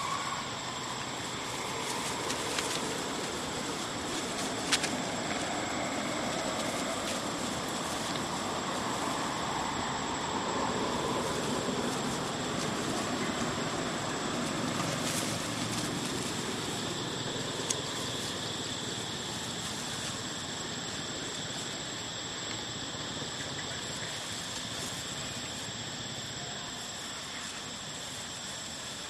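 Steady outdoor background rumble that swells a little in the middle and eases off towards the end, with a faint steady high-pitched tone over it and a few sharp clicks.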